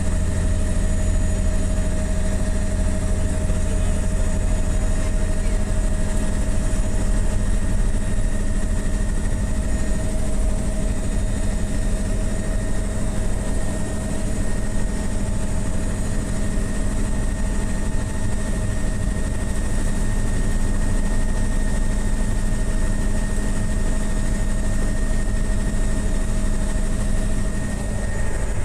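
Helicopter in flight: a steady, loud engine and rotor drone with a constant whine on top.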